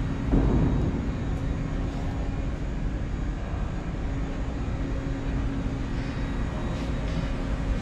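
Steady low rumble of a large exhibition hall's background noise with a constant hum, swelling briefly about half a second in.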